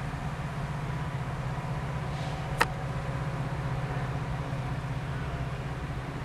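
Diesel locomotive approaching with a steady low engine rumble. A single sharp click comes about two and a half seconds in.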